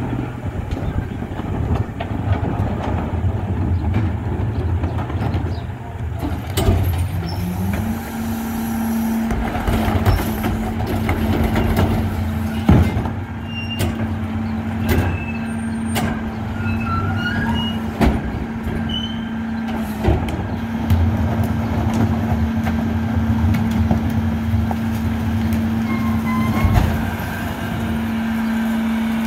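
Rear-loader garbage truck's engine running, stepping up to a steady, higher speed about eight seconds in. Over it come scattered knocks and bangs as recycling carts are tipped and emptied into the rear hopper, the loudest a little before the halfway point.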